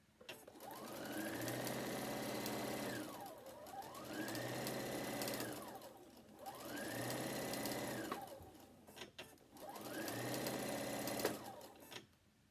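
Domestic sewing machine stitching a seam in four runs. Its motor rises in pitch as it speeds up, holds steady, then falls as it slows between runs, with a sharp click near the end of the last run.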